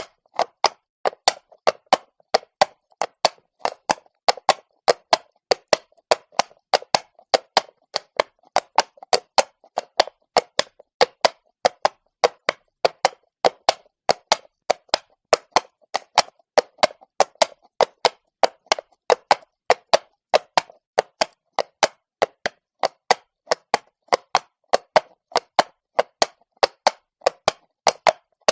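Horse hooves walking on cobblestone: an even, unbroken walking rhythm of sharp clip-clop strikes, several a second.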